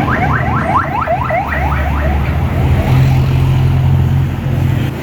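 A rapid run of rising electronic siren chirps, about five a second, typical of a car alarm, stopping about two seconds in, over the steady low hum of an idling vehicle engine.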